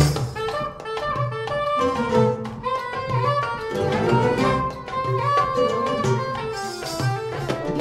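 Live North African Andalusian ensemble music: ouds, guitars and bowed strings playing a melody over hand percussion that keeps a steady beat. It is a lighter passage that comes in just after a louder full-band moment.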